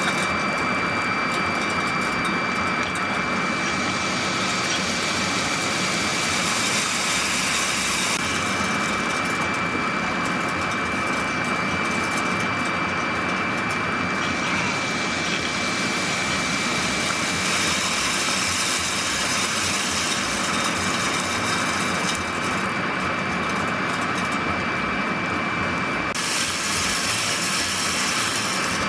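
A steady machine-like drone with a constant high-pitched whine running through it, unchanging in level.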